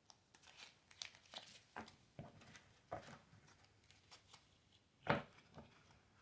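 Oracle cards being shuffled and handled: faint, irregular rustles and soft card slaps, with a louder slap about five seconds in.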